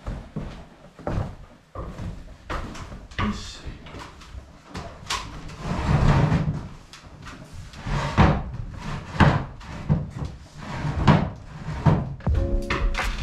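Irregular wooden knocks and thumps as things are shifted about in a wooden attic and on its ladder. Background music comes in near the end.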